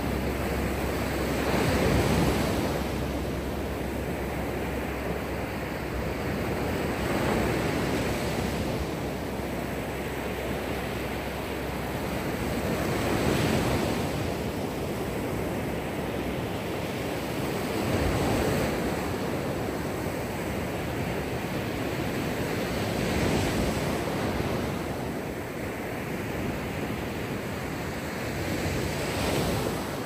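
Mediterranean Sea surf breaking and washing onto a beach, the noise swelling with each wave about every five to six seconds, six times in all.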